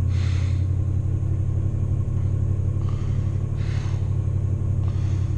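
Engine of a 33-year-old car running with a steady low rumble, warming up after a cold start. Three short hisses come over it: one at the start, one past the middle and one near the end.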